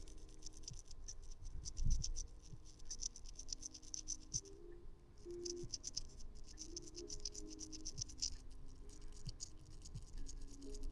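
Faint scratching of a small cleaning tool scraping dust and lint out of a phone's charging port, with small clicks and a light knock about two seconds in.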